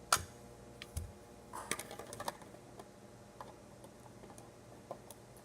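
Plastic Lego pieces being handled: a sharp click near the start, a dull knock about a second in, a quick cluster of small clicks around two seconds, then a few faint ticks.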